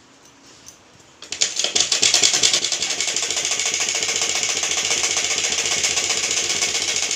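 Merritt sewing machine starting up about a second in, then running fast and steady with an even stitching rhythm as the fabric is fed through.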